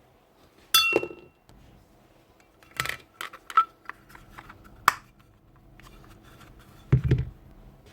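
Metal parts and tools clinking and clattering as they are handled on a workbench during sander repair. A sharp clink with a short ring about a second in, a quick cluster of clatters around three seconds, another click near five seconds, and a duller knock near the end.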